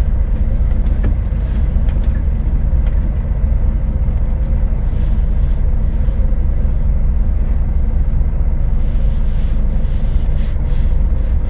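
Scania S500 truck's V8 diesel engine running at low revs as the truck rolls slowly over a dirt lot, a steady low rumble.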